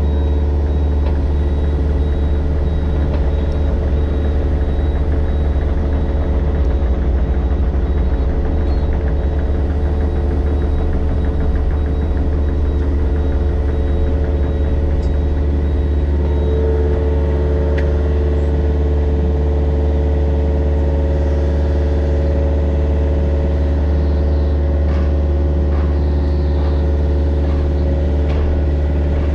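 Mini excavator's diesel engine running steadily, with a strong low hum.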